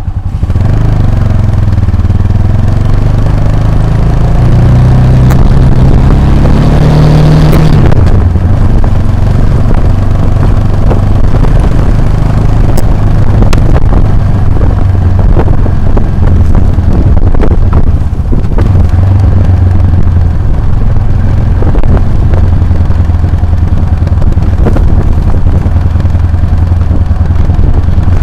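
Motorcycle engine revving up, rising in pitch over the first seven seconds or so, then running steadily, with frequent short knocks and clatter throughout.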